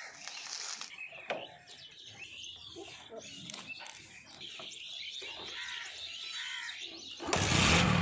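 Birds chirping, with a few small clicks, then near the end a Bajaj Discover motorcycle is kick-started: its single-cylinder engine catches suddenly and runs at idle with a rapid, even beat.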